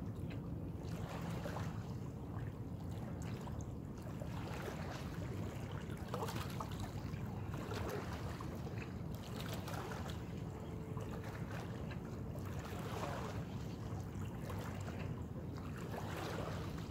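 Shoreline ambience at the water's edge: a steady low rumble, with a few faint splashes of small waves against the rocks.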